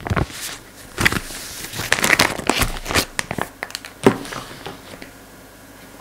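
Felt-tip pens clicking against a clear plastic pen case, with the thin plastic packaging crinkling under the hands: a run of sharp clicks and rustles that stops about four seconds in.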